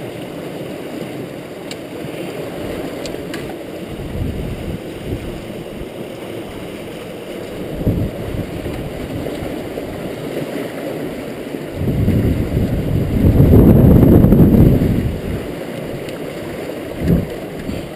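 River water rushing and churning around a rotary screw fish trap, a steady low wash with a louder low surge lasting about three seconds about two-thirds of the way through.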